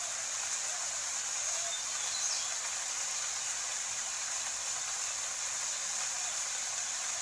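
Steady rain sound: an even wash of noise that holds the same level throughout, with no breaks or distinct drops.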